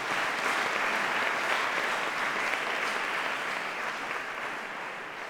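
Audience applauding a speaker at the close of a talk: dense, steady clapping that begins to ease off near the end.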